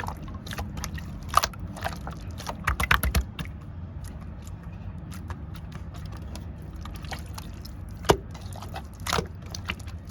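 Clear slime being squished and stretched by hand, giving irregular sticky clicks and pops, with a cluster of them about three seconds in. A steady low hum runs underneath.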